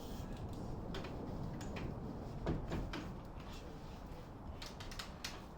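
A scattered series of light knocks and clicks over a steady low background hum, with a louder knock about two and a half seconds in and a quick run of clicks near the end.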